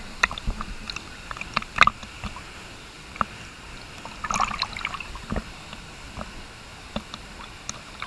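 Water sloshing and splashing against a camera held at the surface of a pool, with many small sharp splashes and a denser burst of them about four seconds in, over a steady rush of moving water.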